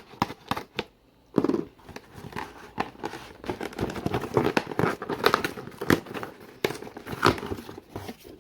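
A small shipping box being opened by hand: irregular crinkling, rustling and tearing of the packaging, with sharp handling clicks and knocks.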